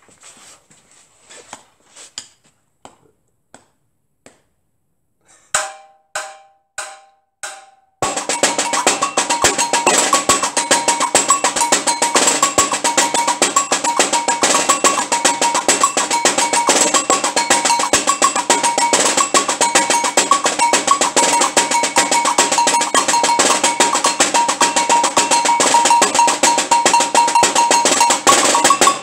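Agogô bell playing a samba de enredo line together with a caixa snare drum in a dense, steady rhythm, stopping together near the end. It is set off about eight seconds in by four single ringing strokes counting in, after a few light taps.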